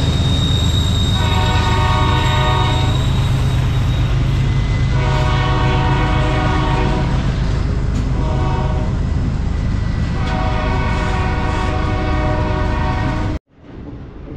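Double-stack intermodal freight train rumbling past close by, while the locomotive's air horn sounds four blasts, long, long, short, long: the grade crossing warning. The sound cuts off abruptly about a second before the end.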